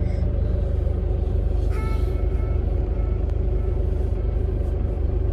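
Steady low road and engine rumble of a car driving, heard from inside the cabin, with a brief high tone about two seconds in.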